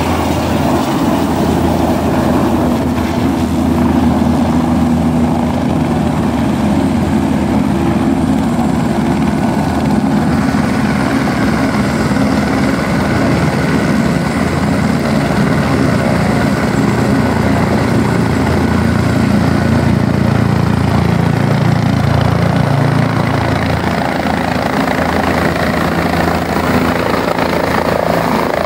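Helicopters running on a helipad: the turbine engines and rotors give a loud, steady noise throughout as the machines lift off and hover in to land.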